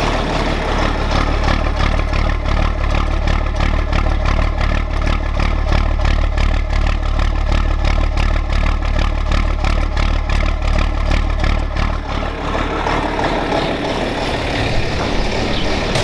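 John Deere 4430's six-cylinder turbo diesel idling steadily, warmed up and running smoothly, heard close to the exhaust stack as an even beat of exhaust pulses over a deep steady note. About twelve seconds in the even beat gives way to a less distinct, more distant running sound.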